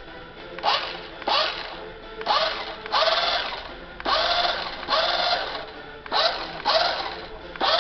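Small electric drive motor of a 1:14 scale RC car whirring in about nine short blips of throttle, each whine rising in pitch as the motor spins up and then holding steady.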